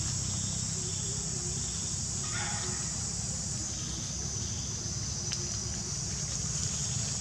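Steady outdoor background: an even, high-pitched insect drone over a low rumble.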